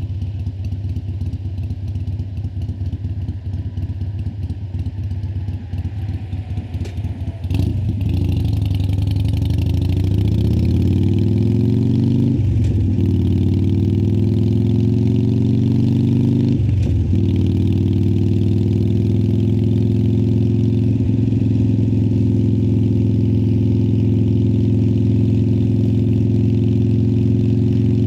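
A 2018 Harley-Davidson Sportster Iron 1200's air-cooled V-twin through Vance & Hines Twin Slash slip-on mufflers. It runs with a loping idle for about the first seven seconds, then pulls away, its note rising in two climbs broken by gear changes about four seconds apart, before settling into a steady cruise.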